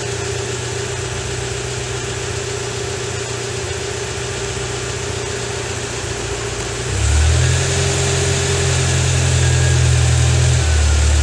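Fuel-injected UAZ Bukhanka van engine idling with a steady low hum; about seven seconds in it grows louder and heavier, then eases back near the end.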